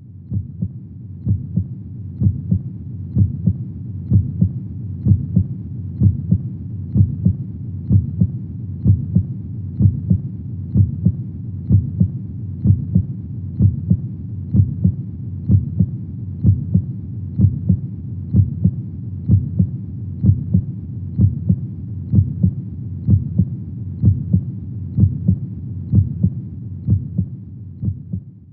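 Heartbeat sound: a slow, steady, low beat at about one beat a second, over a steady low noise bed. It fades in at the start and fades out at the end.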